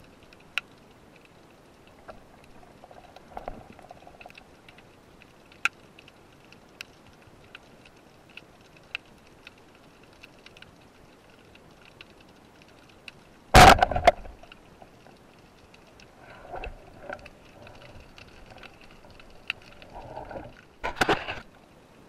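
Underwater ambience picked up by a speargun-mounted camera in its housing: scattered sharp clicks and ticks, with a loud rushing burst lasting under a second about two-thirds of the way in and another short burst near the end.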